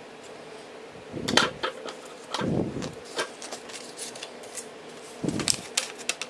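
Scissors and a paper sticker sheet being handled on a table: paper rustling, scissor snips and light knocks in three short clusters, about a second in, about two and a half seconds in and about five seconds in, over a faint steady hum.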